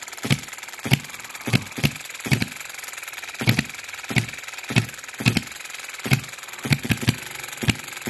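Scale hit-and-miss model engine, a 3.4 cc four-stroke petrol engine, running: sharp firing pops about twice a second, unevenly spaced and sometimes in quick pairs, over a steady light mechanical rattle. It is running quite fast on its first run.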